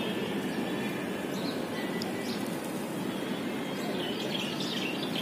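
Birds chirping faintly a few times over a steady outdoor background rumble.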